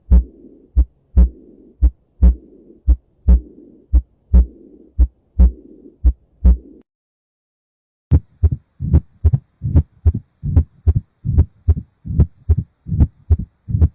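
Heart sounds heard through a stethoscope: paired lub-dub beats at about one beat a second, with a faint rushing sound between the beats. They break off about seven seconds in, and after a second of silence faster beats start, about three thuds a second.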